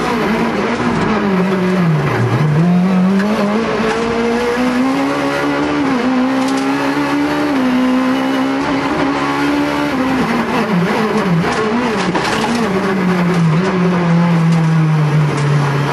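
Rally car engine heard from inside the cockpit, revving hard through the gears. The note drops sharply about two seconds in, climbs and holds, then falls steadily over the last few seconds as the car slows.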